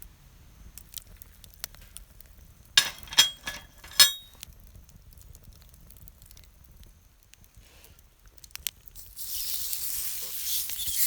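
A few sharp clacks about three to four seconds in, then from about nine seconds food sizzling loudly as it goes onto hot cookware.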